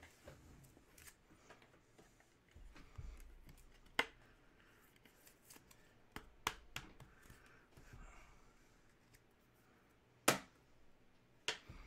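Trading cards and packs being handled: faint scattered clicks and soft rustling, with a sharper tap about four seconds in and another near the end.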